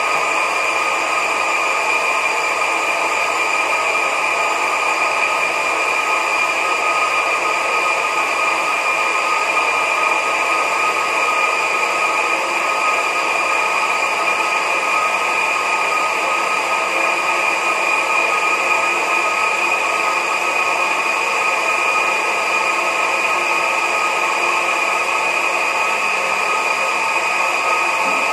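Electric countertop blender running steadily, grinding a wet spice paste. The motor gives an even, high whine that holds the same pitch and level throughout.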